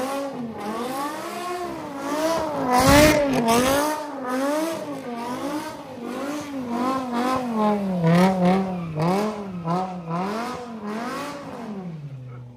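BMW M5 E60's V10 engine revving hard and very loud while the car drifts in circles on wet pavement, the revs swinging up and down about once a second. Near the end the revs fall away to a low, steady note.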